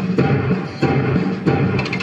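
Music with a steady, strong beat, about three beats in the two seconds, over sustained low and middle tones.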